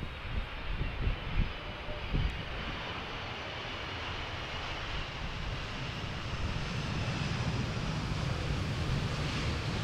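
Jet engines of a Boeing 767-316F freighter on its landing, a broad rushing noise with a high whine that grows steadily louder. A few low thumps sound in the first couple of seconds.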